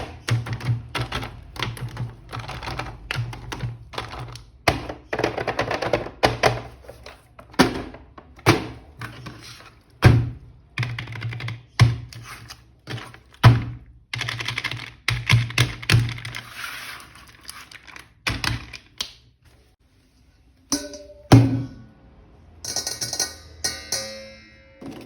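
Plastic toys and packaging being handled: a fast, irregular run of sharp clicks, taps and thunks, pausing briefly near the end.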